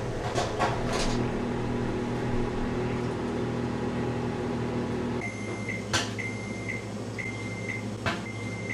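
Microwave oven heating a bag of popcorn, running with a steady hum and a few sharp pops in the first second. It shuts off about five seconds in and sounds its end-of-cycle signal: four short beeps about once a second, with a sharp click after the first beep and another near the end.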